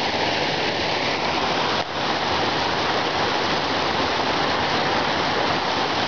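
Mountain waterfall cascade pouring over rocks close by: a steady, loud rush of falling water.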